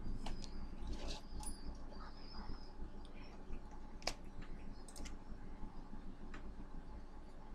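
A handful of faint computer-mouse clicks, spread irregularly with the sharpest about four seconds in, over a low steady room hum. A few brief, faint high chirps come in the first two or three seconds.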